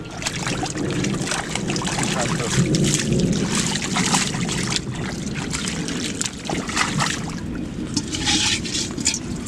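Hands sloshing and splashing irregularly through shallow muddy water while groping in the mud for fish. About eight seconds in, the splashing turns brighter as hands go into a bucket of water holding the catch.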